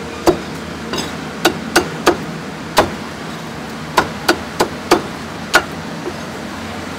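A cleaver chopping through pork blood cake, crispy pork belly and intestines onto a wooden chopping block: about ten sharp, irregular chops that stop a little before the end. A steady low background hum runs underneath.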